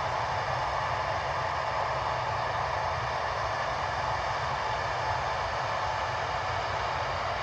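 The two General Electric CF34-8C5 turbofan engines of a Bombardier CRJ-900 jet running steadily: an even rush of jet noise with a faint whine in it.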